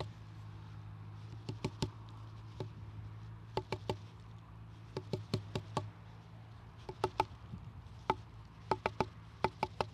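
Irregular taps and knocks on a wooden branch, imitating a great spotted woodpecker feeding as it bashes around on branches looking for bugs: scattered clusters of a few quick taps separated by pauses, with no steady rhythm.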